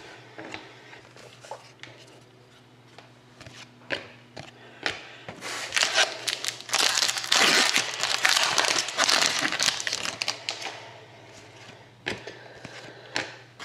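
A trading-card pack wrapper crinkling as it is opened, loudest for about five seconds from roughly five seconds in, with light clicks and taps of cards being handled before and after.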